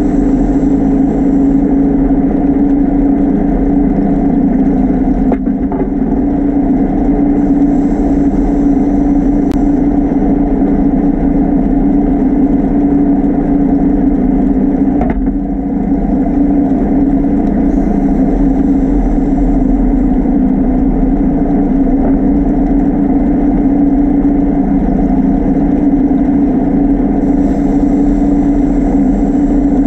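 Diver propulsion vehicle's electric motor and propeller running underwater, a steady hum. A brief hiss of exhaled bubbles comes about every ten seconds, four times.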